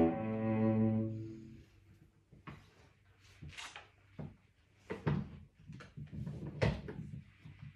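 Cello's last bowed notes ending in the first second and a half, then paper rustling and light knocks as a page of sheet music on a stand is turned.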